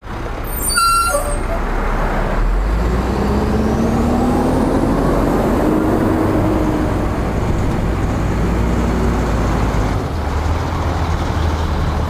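A large engine running steadily under load, with a brief high squeal about a second in and the engine note slowly rising a few seconds later.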